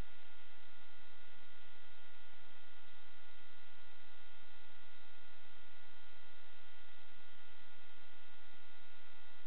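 Steady electrical hum and hiss with several high, unchanging whine tones: electronic noise with no live sound in it, not the quad's motors.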